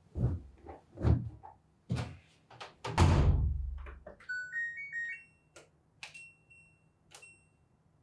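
Thumps as a sheet is pushed into the drum of an LG WM3998HBA washer-dryer combo, then the door shut with a heavy thud about three seconds in. The machine then plays a short run of electronic tones stepping upward, followed by a few single beeps as its buttons are pressed to set a dry cycle.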